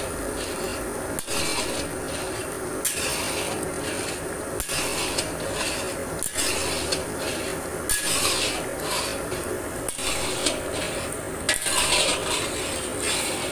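Flat metal spatula scraping and stirring thickened, crumbly milk solids (mawa) around a large iron wok, with a rasping stroke against the pan every second or two.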